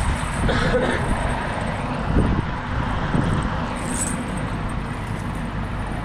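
Busy street ambience: a steady rumble of traffic with faint voices in the background.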